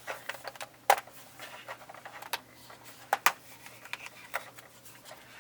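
Scattered clicks and light rustling of toy craft-kit pieces being handled and sorted by hand, with a few sharper clicks about a second in and again around the middle.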